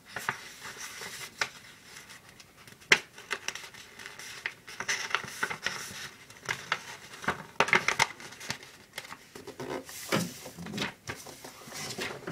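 A sheet of paper being handled and folded: on-and-off rustling and crinkling, with a sharp tap about three seconds in.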